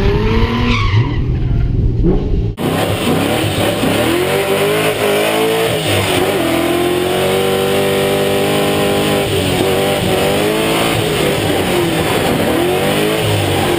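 Drift car engine revving hard while sliding, its pitch swooping up and down and held high in the middle, over tyre squeal. The sound changes abruptly about two and a half seconds in, where one run is cut to another.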